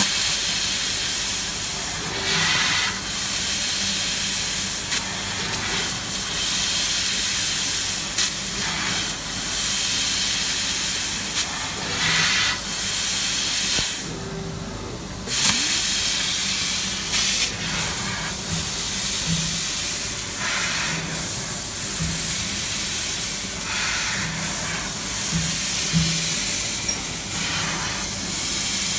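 Fiber laser tube cutting machine cutting square steel tube: a steady, loud hiss of assist gas jetting from the cutting nozzle, which stops for about a second around halfway through and then resumes, with a low machine hum beneath.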